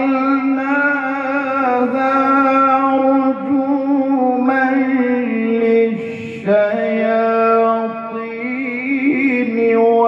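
A man reciting the Qur'an in the melodic tilawah style, holding long, ornamented notes with two brief breaks.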